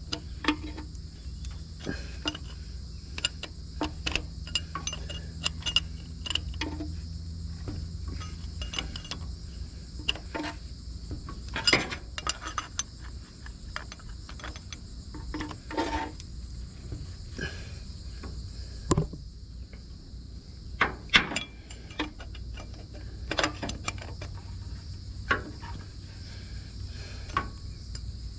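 Hand tools working on car battery cable connections: irregular metallic clicks, clinks and light knocks, with short ratchet-like runs.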